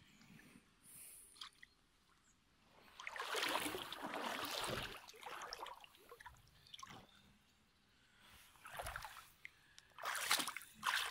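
Shallow lake water sloshing and splashing as a large carp is eased out of a floating sling and released. The loudest splashing comes about three seconds in and lasts a couple of seconds, with shorter splashes later and near the end.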